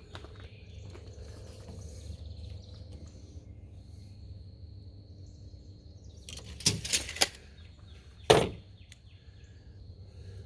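Pieces of pipe and fittings being handled: three quick knocks about two-thirds of the way in, then one louder knock a second later, over a steady low hum.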